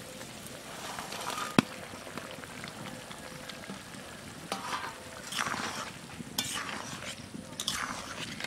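Metal ladle stirring fish and bitter gourd curry simmering in an aluminium kadai: a steady faint sizzling with several short scraping strokes against the pan in the second half. There is one sharp knock about a second and a half in, the loudest sound.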